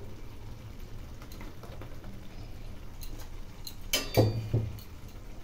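Raisins tipped into a kadai of thick simmering chutney, making a brief clatter with a dull thud about four seconds in, over a low steady hum.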